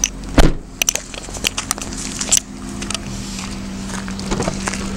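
A loud thump about half a second in, then footsteps on gravel with scattered clicks and knocks, over a steady low hum.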